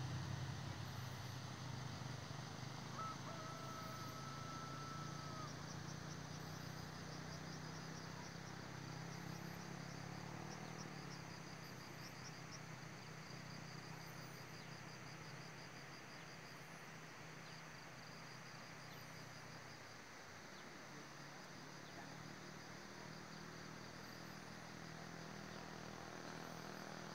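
Faint rural hillside ambience: insects chirping in trains of rapid high-pitched pulses, with faint high chirps repeating every second or two over a low steady hum.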